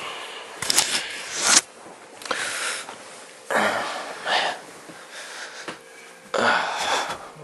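A person breathing heavily: four loud, noisy breaths, each under a second, a second or two apart.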